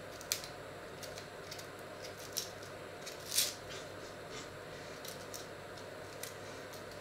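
Dry onion skins crackling and tearing as an onion is peeled with a small knife, in a few short scattered crackles, the loudest about three and a half seconds in.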